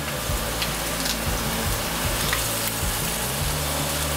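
Steady sizzling of food frying in a hot pan, with low background music underneath.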